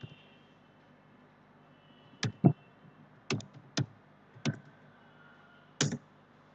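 Computer keyboard keystrokes: about six separate key presses, spaced half a second to a second apart, as a short word is typed.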